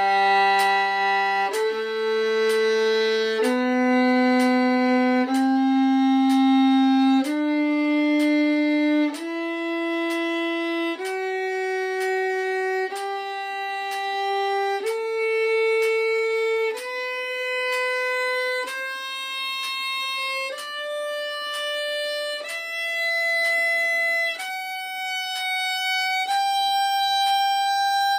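Solo violin playing a two-octave G major scale slowly upward from the open G string to the high G, each note held for about two beats with a separate bow stroke.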